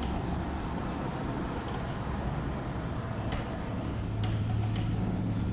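Cloth duster wiping marker ink off a whiteboard: faint rubbing with a few light clicks. A low steady hum comes in about four seconds in.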